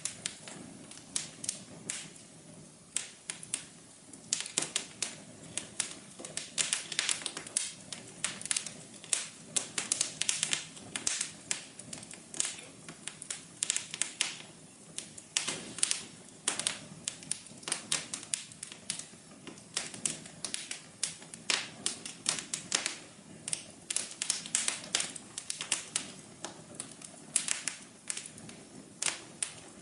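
Fireplace fire crackling: a steady run of irregular sharp pops and snaps, some louder and some soft, over a low hiss.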